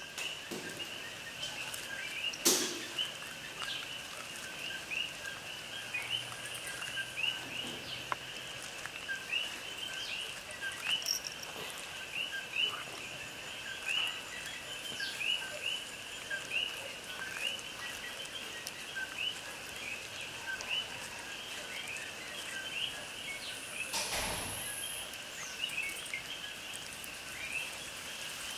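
A dense outdoor chorus of small animals calling, many short chirps over a steady high drone. A sharp click comes about two and a half seconds in, and a brief louder rustle near the end.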